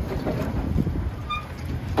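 Uneven low rumble of outdoor background noise, like wind buffeting the microphone, with a brief faint high chirp about a second and a half in.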